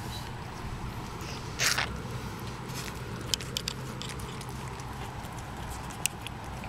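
Mother cat licking and chewing at a newborn kitten: a few sharp wet clicks from her mouth, and a brief rustle about one and a half seconds in, over a steady low hum.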